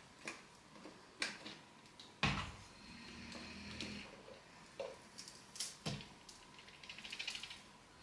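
Plastic clicks and knocks as the AEG HX6-30STM handheld vacuum's nozzle and dust container are unlatched and pulled apart, the sharpest knock about two seconds in, with a quick run of small ticks near the end.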